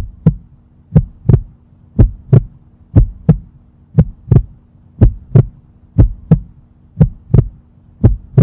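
Heartbeat sound effect: a steady lub-dub, two thumps close together about once a second, over a faint steady hum.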